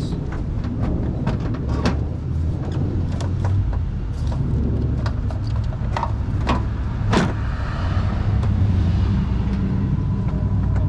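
Scattered plastic clicks and knocks as a headlight assembly and its wiring connectors are handled and plugged in, over a steady low rumble.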